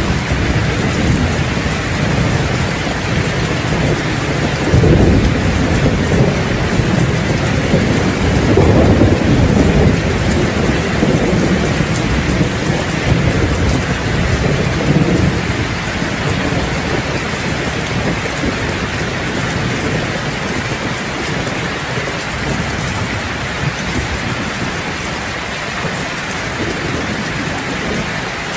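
Heavy rain falling steadily on a roof, with rolling thunder in the first half that swells about five seconds in and again around nine seconds, then dies away, leaving only the rain.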